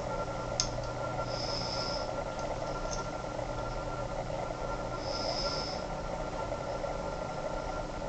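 Steady background hum and hiss, with a short high hiss coming back every few seconds and two faint clicks.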